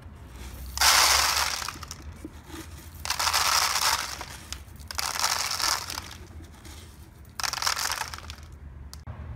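Dry oats rustling as a hand digs them out of a dirt bike's air box, a mouse's winter stash, in four separate spells of about a second each.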